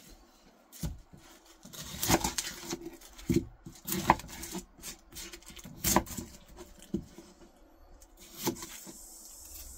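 A chef's knife trimming and peeling an onion on a plastic cutting board: about seven irregular knocks of the blade on the board, with scraping and rustling of the papery onion skin between them.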